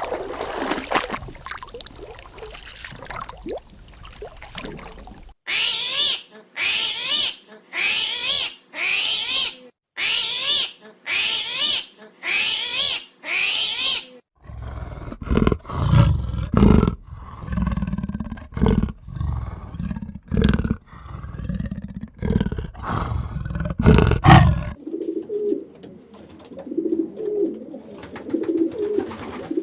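Animal calls from several different animals in turn, in separate clips. First comes a low call, then eight evenly spaced calls of about a second each, then a run of loud, deep, rough calls. From about 25 seconds in there is soft repeated cooing.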